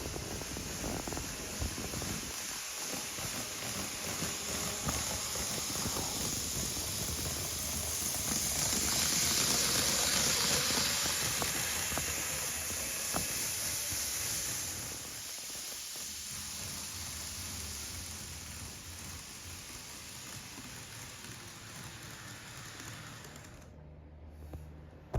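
A train running past with a rushing noise that swells about a third of the way in and then slowly fades away.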